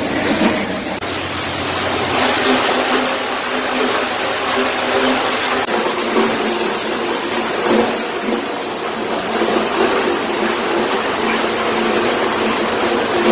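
Tractor-PTO-driven maize sheller-thresher running, a steady dense rushing noise with a faint hum underneath.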